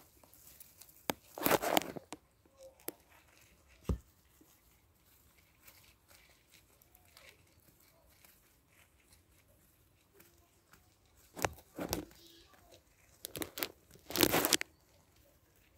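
Hamsters shifting about in dry wood-shavings bedding: scattered crinkly rustles, loudest about a second and a half in and again near the end, with quiet stretches between.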